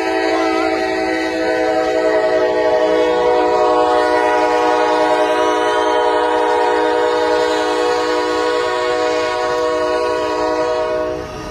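Train horn sounding one long unbroken blast, a steady chord held for about eleven seconds and then cut off near the end.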